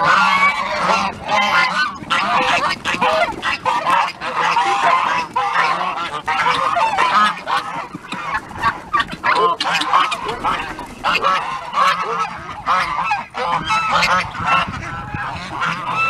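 A flock of domestic geese honking, many calls overlapping without a break.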